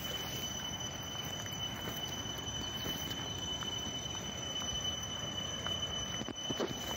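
Outdoor ambience: a steady rushing noise with a continuous high-pitched insect drone, and a few faint ticks.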